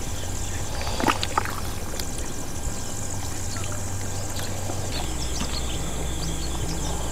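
Goat leg soup ladled and poured into paper bowls, with a few light clicks of the steel ladle about a second in. Behind it are a steady low hum and high insect chirring.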